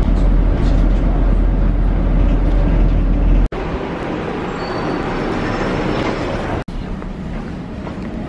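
A bus's engine and cabin rumble heard from inside, heavy and low, cut off abruptly about three and a half seconds in. What follows is an even hiss of indoor ambience, with a second abrupt cut a little after six and a half seconds to a quieter one.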